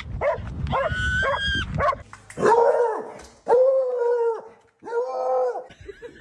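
Dog vocalizing: high-pitched whines in the first two seconds, then three drawn-out calls at a lower, steady pitch, each about a second long.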